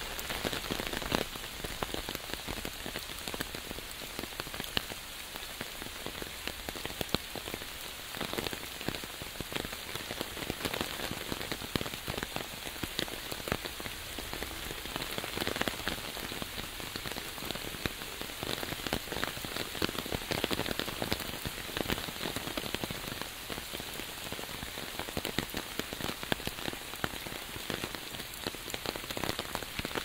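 Steady rain falling on an umbrella overhead and on the surrounding leaves and path, with a dense, irregular stream of sharp taps from drops striking close by.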